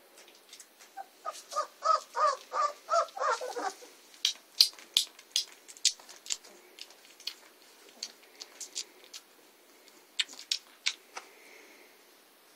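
Three-week-old German Shepherd puppies squeaking as they play: a quick run of short high squeaks starting about a second in and lasting about three seconds. Sharp clicks come and go throughout.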